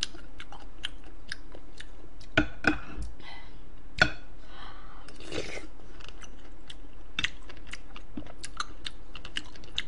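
Close-miked chewing and mouth sounds while eating: a steady scatter of small wet clicks, with a few sharper crunches about two and a half and four seconds in.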